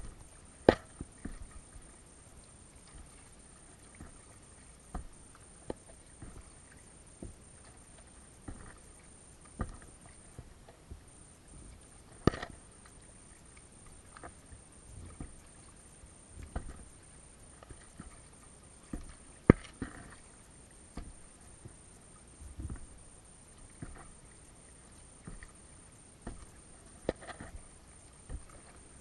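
Paddling an Itiwit x500 inflatable kayak: irregular paddle splashes and sharp taps every second or two, with a few much louder knocks of the paddle against the hull.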